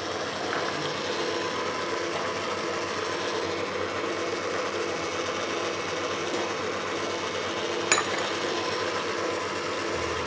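Electric stand mixer running steadily, whipping cream. A single sharp tap sounds about three-quarters of the way through.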